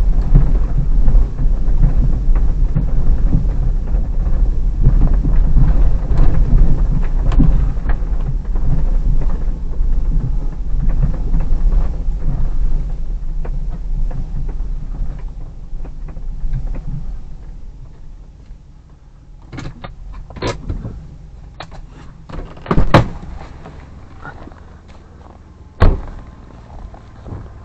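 Low rumble of the Hyundai Terracan's 3.5 V6 and tyres as the SUV drives slowly over a bumpy snowy forest track, heard from inside the cabin, with small knocks from the body and suspension. After about two-thirds of the way through it goes quieter, and a few clicks and thumps follow as the car door is opened and shut, the last a sharp slam near the end.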